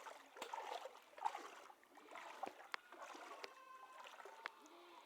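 Faint floodwater sloshing and gurgling, with a few sharp clicks.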